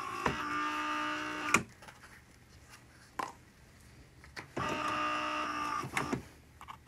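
A Philips EP1220 automatic espresso machine's internal motor whirring in two runs of about a second and a half each, with quiet and a few clicks between them.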